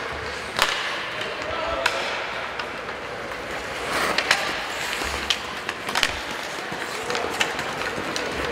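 Ice hockey play: skates scraping on the ice, with a dozen or so sharp clacks of sticks hitting the puck and the ice, and players' shouts now and then.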